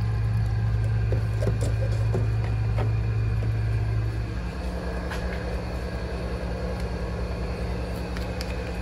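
Steady low machinery hum. About four seconds in it drops a little in level and shifts to a higher pitch. A few faint light knocks sit on top of it.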